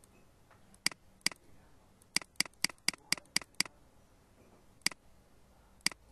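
Computer mouse clicking: two single clicks, then a quick run of seven at about four a second, then two more single clicks.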